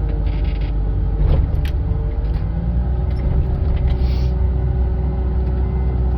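John Deere 544K wheel loader's diesel engine running steadily as it pushes snow. Its pitch eases down just after the start and then holds, with two short knocks about a second and a half in.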